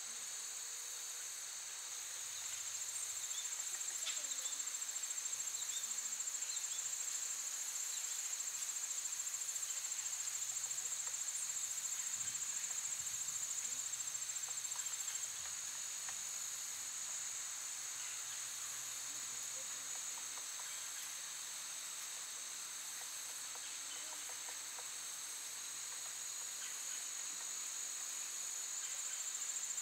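Steady, high-pitched insect chorus buzzing without a break, a little louder for the first half.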